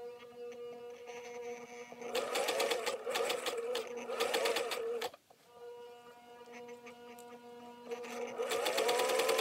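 Singer 500A sewing machine stitching a seam: a steady motor hum, with two runs of fast, even needle clatter, the first about two seconds in and stopping abruptly about three seconds later, the second starting near the end.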